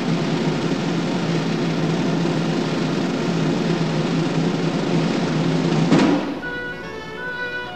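A sustained drum roll, held steady and ending with a final stroke about six seconds in. A tune then starts up on pitched instruments.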